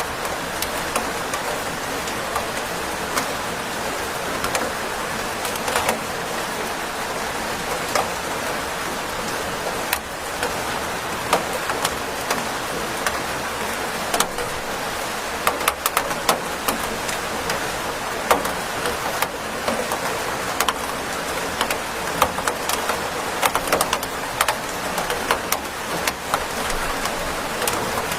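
Steady rain falling, with many sharp drops and drips hitting a surface that come thicker in the second half.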